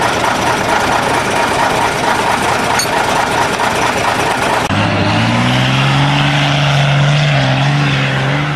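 Trial truck engine running close by, loud and rough for the first half. About halfway through the sound changes to a steadier engine note that rises and falls slightly in pitch as a truck drives.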